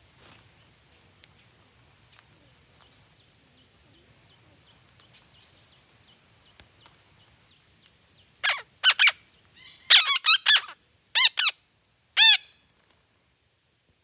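Parrots giving a quick run of about seven loud calls over some four seconds, beginning about eight seconds in, the last one falling in pitch. Before them there are only faint light ticks over a soft hiss.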